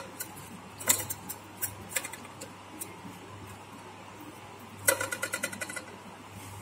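Soft wet clicks and taps of fingers spreading thick masala paste over a taro leaf on a steel plate, scattered through, with a quick run of about ten clicks about five seconds in.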